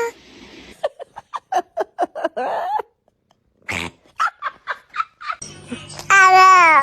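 Domestic cat vocalizing: a run of short, quick chirping calls, then one long meow that falls in pitch near the end.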